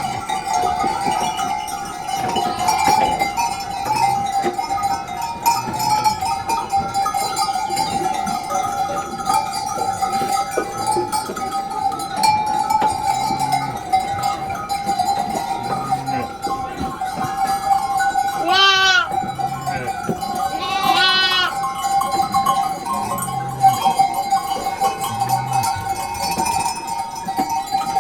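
Sheep bells clanking steadily in a flock of sheep. A sheep bleats twice, a couple of seconds apart, past the middle.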